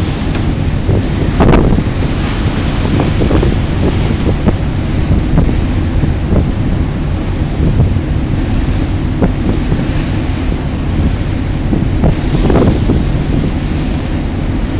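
Strong wind buffeting the microphone aboard a moving ferry, a constant low rumble broken by gusty thumps, over the rush of the sea.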